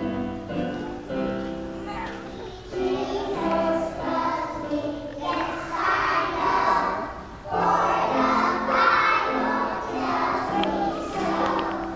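A group of young children singing a song together, the singing swelling louder about three seconds in and again a little past halfway.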